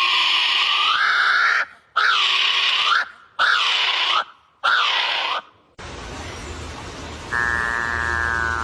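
A bird's loud, harsh screaming calls, four in a row, each about a second long and dipping then rising in pitch. The calls stop a little before six seconds in; a low steady hum follows, with a falling series of stepped tones near the end.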